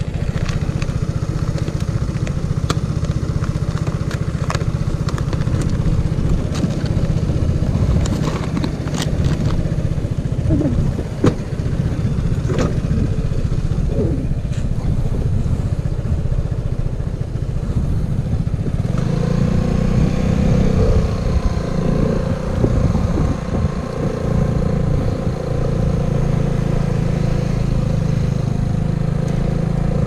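Vespa Sprint scooter's single-cylinder engine running steadily, then picking up about two-thirds of the way in as the scooter moves off, its hum stronger and fuller. A few sharp ticks in the first half.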